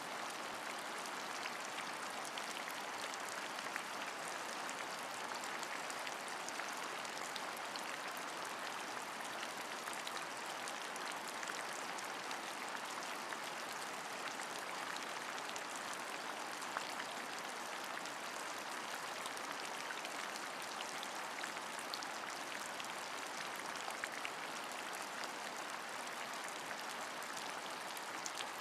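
Steady rain falling, an even hiss with scattered drop taps now and then.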